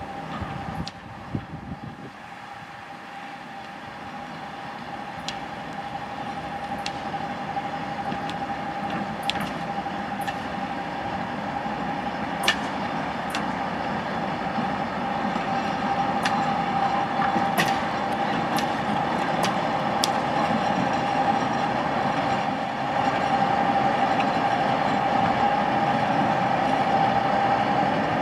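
TGM23V diesel-hydraulic shunting locomotive running as it rolls toward and past, growing steadily louder, with a steady high whine and a scattering of sharp clicks.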